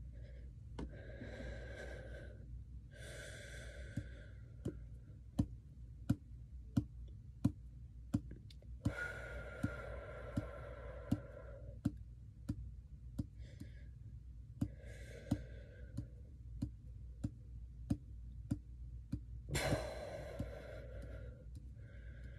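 A person breathing slowly and heavily, long in-and-out breaths a few seconds apart: controlled breathing to calm a panic attack. A steady tick sounds about every two-thirds of a second alongside.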